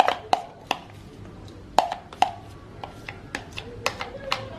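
A series of about nine sharp, irregular taps and knocks from a plastic container, some with a short ring, as frozen coconut milk is shaken and knocked out of it into a pot of water.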